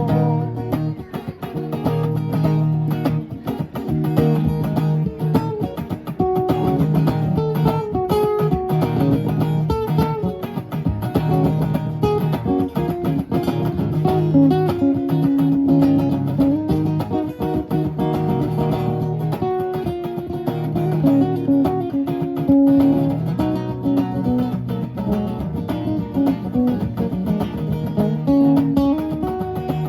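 Guitars playing an instrumental break in a rock song: a strummed rhythm part with steady low notes under a single-note lead melody.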